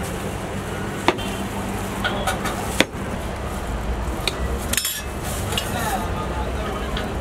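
A spoon knocking and scraping in a plastic blender jar: a few sharp clicks, the loudest about a second in and just before three seconds, with lighter clinks later, over a steady low hum.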